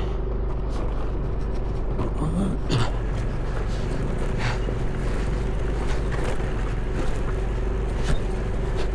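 Two-wheeler engine running steadily while riding over a rocky unpaved road, with constant road and wind noise and a few sharp knocks from stones.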